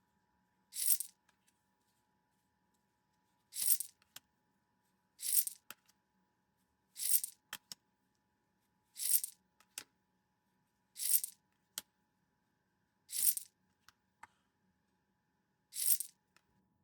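Pokémon trading cards being slid off the stack one at a time, eight short swishes about two seconds apart, each followed by a small click.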